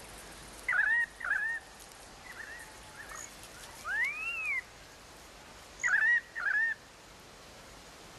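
Bird calls: short downward-curving chirps in pairs, about a second in and again near six seconds, with a longer whistle that rises and falls about four seconds in, over a faint steady background.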